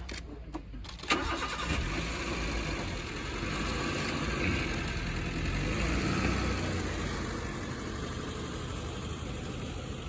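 A safari vehicle's engine starts about a second in with a sudden catch, then runs steadily with a low rumble.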